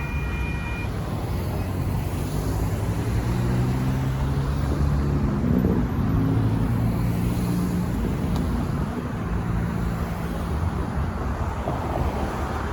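Low engine rumble of passing heavy vehicles that swells to its loudest about six seconds in, then eases off.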